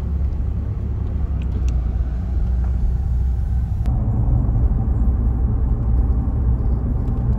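Road noise inside a moving car's cabin: a steady low rumble of tyres and engine at road speed. About four seconds in, the noise changes and gets slightly louder.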